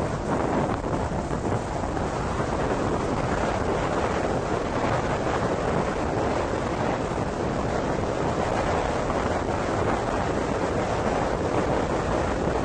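Rainstorm: a steady rushing noise of rain and wind, with wind buffeting the microphone.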